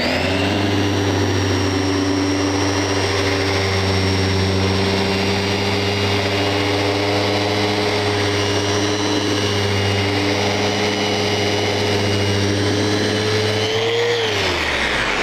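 Festool random-orbit sander running steadily while sanding a hardwood block at fine grit, with its dust-extraction hose attached. It winds down with a falling pitch shortly before the end as it is switched off.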